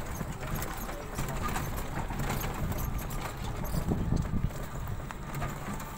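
A vehicle driving over a rough, rutted dirt road: a steady low rumble with scattered small knocks and rattles.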